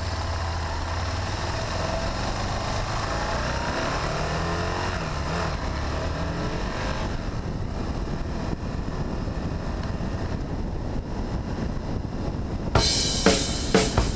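Aprilia Caponord ETV1000's V-twin engine running while riding, with pitch rising and falling in the first half, over a steady rush of air noise that takes over later. Drum-kit music starts near the end.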